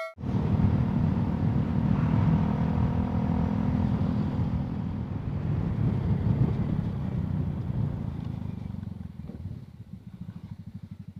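Motorcycle engine running while riding, heard from a bike-mounted camera along with road and wind noise. After about eight seconds it drops in level and becomes a slower, evenly pulsing throb.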